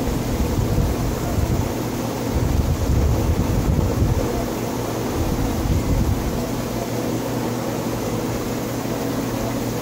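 Steady low rumble and hum of a reef aquarium's pumps and water circulation. Uneven deeper rumbling eases after about four seconds.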